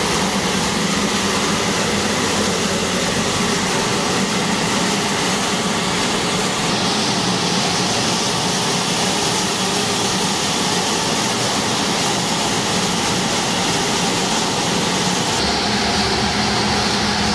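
Ship's emergency fire pump, an electric motor driving the pump, running steadily just after start-up. It is a loud, even machine noise with no breaks, and the pump is building up discharge pressure during a routine test.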